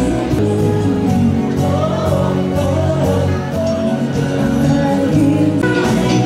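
Live band with a female singer performing a song with a steady beat.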